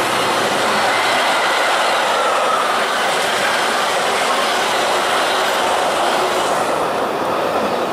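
Metra bi-level stainless-steel commuter cars rolling past close by: a steady, loud rush of steel wheels on rail.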